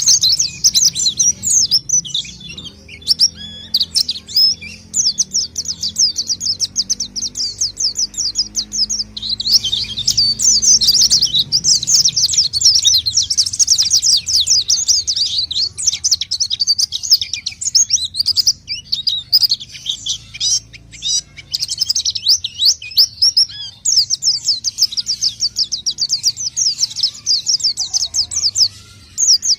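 White-eye (pleci) singing an energetic, rapid, high twittering song in long runs of several seconds with short breaks, a song used as a lure call to attract white-eyes.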